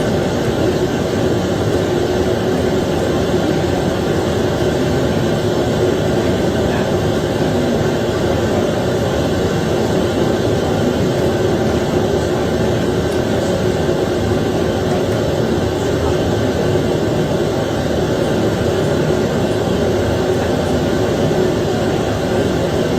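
Steady rushing noise from the courtroom audio feed, with no speech and no change in level.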